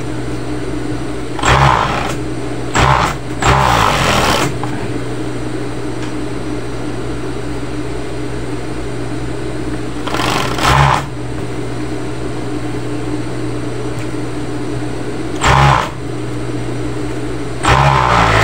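Industrial sewing machine, its motor humming steadily, with several short, louder bursts as it stitches the fabric in quick runs.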